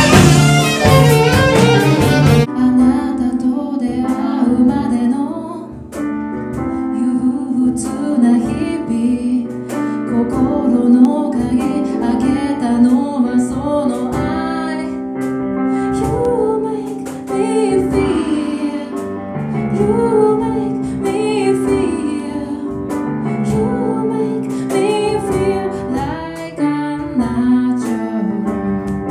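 Live band with a brass section playing, then, after a sudden cut about two seconds in, a woman singing a slow song while she accompanies herself on keyboard, backed by the band.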